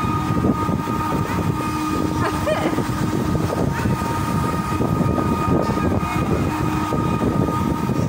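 Steady rumbling and whirring of a spinning balloon-basket amusement ride in motion, with a steady high hum over it and faint voices in the background.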